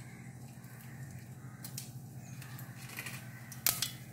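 Mustard seeds beginning to pop in hot ghee in a steel kadai: a few scattered sharp pops, more of them near the end, over a steady low hum.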